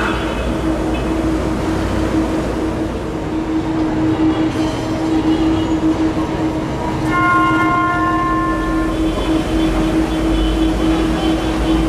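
Tram running with a steady hum and rumble. A horn with several pitches sounds for about two seconds, starting about seven seconds in.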